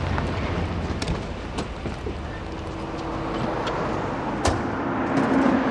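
Car and street traffic noise, broken by a few sharp knocks; the loudest knock comes about four and a half seconds in.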